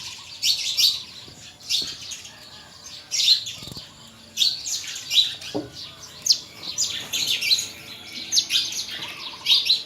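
Birds chirping: a busy, irregular run of short high chirps, two or three a second.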